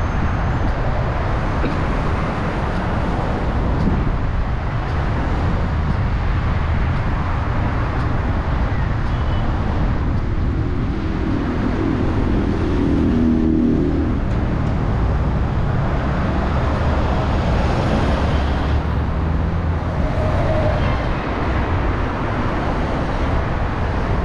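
Steady road traffic on a busy city boulevard: cars and buses running past with a continuous low rumble. A low humming tone comes in for a few seconds around the middle.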